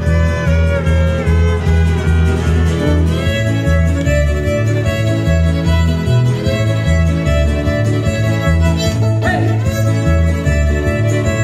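Mariachi violin and acoustic guitar playing live: the violin carries the melody, with some sliding notes, over the guitar's steady rhythmic accompaniment and bass pulse.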